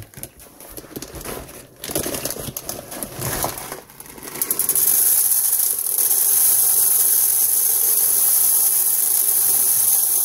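Plastic zip-lock bag crinkling as it is handled, then dried mung beans pouring out of it into an empty metal pressure-cooker pot: a steady, hissing rattle of beans from about four seconds in until near the end.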